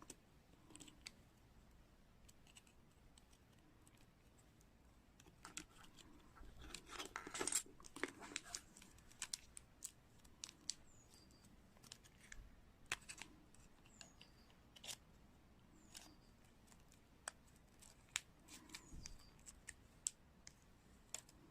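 Faint, scattered small clicks and taps as internal parts of a Samsung Galaxy S7 are handled and pressed back into place during reassembly, busiest from about six seconds in.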